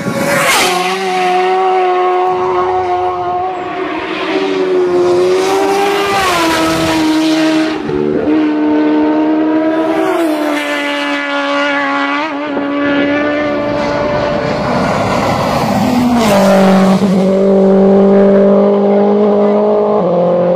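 Racing engines at high revs on a road circuit. A race motorcycle flashes past with a sudden rush right at the start, then engine notes hold steady and shift pitch with gear changes, getting louder near the end as another racer approaches.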